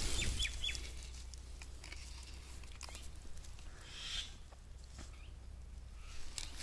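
Quiet outdoor ambience: scattered faint ticks, a few short chirps near the start, and a brief soft rustle about four seconds in.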